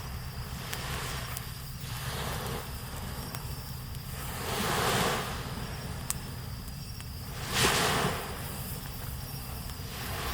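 Small waves washing up on a sandy beach, swelling twice, most strongly near the end, over a steady chirring of insects.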